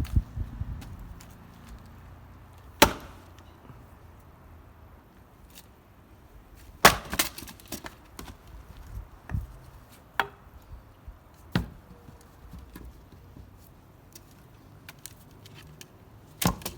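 Axe splitting firewood: sharp strikes of the axe into wood every few seconds, the loudest about seven seconds in, followed by several quick knocks.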